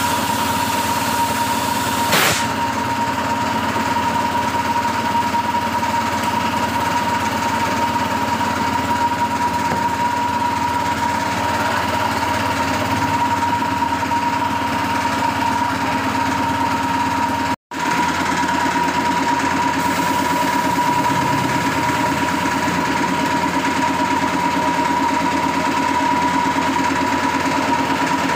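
A machine running steadily, a constant hum with a high whining tone that does not change. It cuts out for an instant about two-thirds of the way through.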